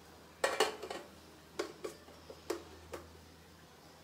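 A metal utensil clicking and tapping against a steel plate: a quick cluster of taps about half a second in, then a few scattered single taps.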